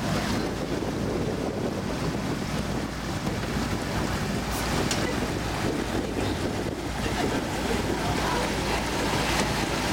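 River cruise boat under way: a steady low engine drone under the rush of water from the wake, with wind buffeting the microphone.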